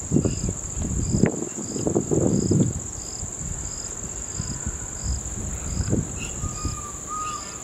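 Insects in the grass: one keeps up a steady high drone while another chirps about three times every two seconds. Low rustling and handling noises sound over them in the first three seconds.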